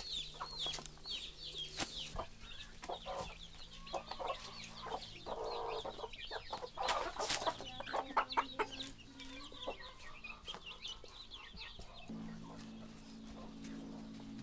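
Chickens clucking and cheeping, many short falling chirps repeating one after another. A few sharp knocks and clatters come in the middle, and a low steady hum starts near the end.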